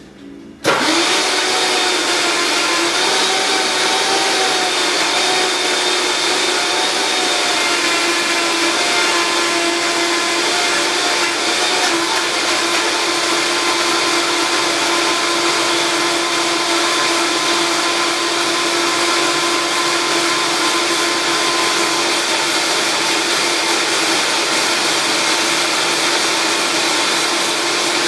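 Countertop blender running at high speed, blending frozen acai, frozen banana, strawberries and orange juice into a thick frozen base. It starts suddenly about a second in, runs steadily, and switches off near the end with the motor winding down in pitch.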